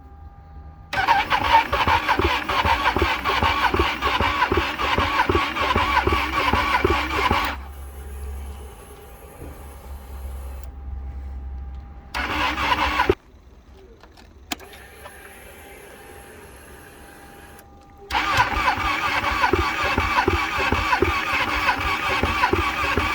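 Ducati Panigale 1299's L-twin engine being turned over on its electric starter without catching: a hard start after standing all winter. Cranking comes in three spells: one of about six seconds, a short one near the middle and another long one near the end.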